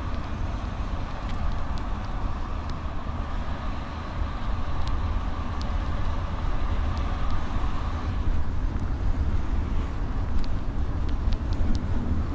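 Steady drone of a coach driving at motorway speed, heard from inside the cabin: low engine and tyre rumble, with a faint whine that drops away about two-thirds of the way through and small clicks and rattles now and then.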